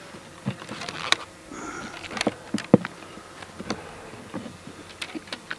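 Honeybees buzzing around an open hive, with scattered clicks and knocks from wooden hive frames and comb being handled. The loudest knock comes a little under three seconds in.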